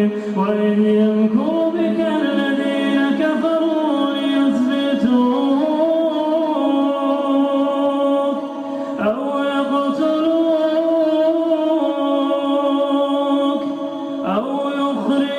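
A solo male voice reciting the Quran in slow, melodic tajwid chant, drawing out long held notes that bend and ornament in pitch. There are two short pauses for breath, about nine and fourteen seconds in.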